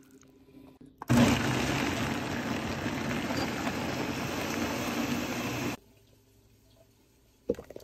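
Ninja countertop blender running, puréeing the mole ingredients with the chicken's cooking water into a liquid sauce: a steady rushing noise that starts about a second in and cuts off suddenly about four and a half seconds later.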